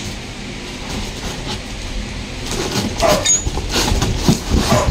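Cardboard box being handled and shifted, with a dog barking repeatedly from about halfway through.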